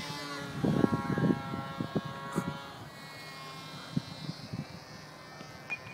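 Electric motor and propeller of a small foam RC flying wing buzzing in flight: a thin, steady whine of several tones that dips slightly in pitch in the first second. A few low bumps on the microphone in the first two seconds.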